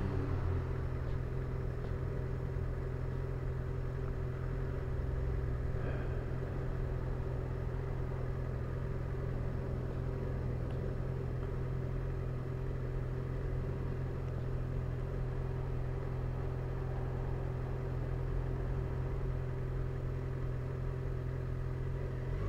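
Motorcycle engine idling steadily: a low, even hum that does not rise or fall.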